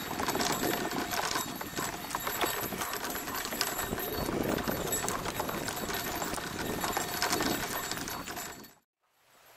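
A dog sulky rolling along a trail of dry fallen leaves behind a trotting Catahoula leopard dog: a steady noise of wheels and paws on leaves, thick with small clicks and rattles. It cuts off suddenly near the end.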